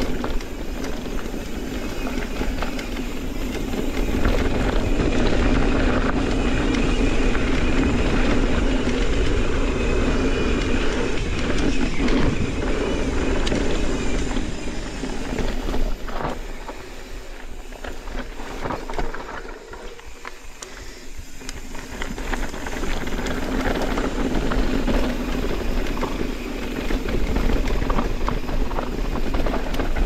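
Mountain bike riding dirt singletrack: tyres rolling and rattling over the trail with wind noise on the camera microphone. It eases off for a few seconds about two-thirds through, then picks up again.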